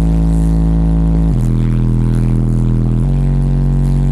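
A car audio system's two Digital Designs 9515 subwoofers playing long held bass notes very loud inside the car's cabin. The note changes pitch about a second and a half in and again about three seconds in.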